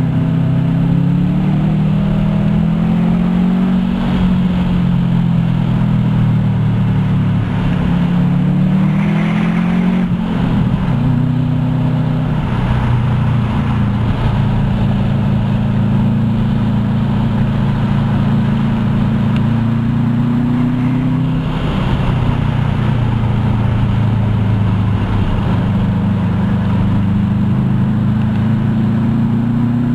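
2007 Subaru STi's turbocharged 2.5-litre flat-four engine through a Borla Hush exhaust, heard inside the cabin while being driven through corners. The engine note climbs and falls repeatedly, dropping sharply about ten seconds in and again around twenty-one seconds, then climbing again.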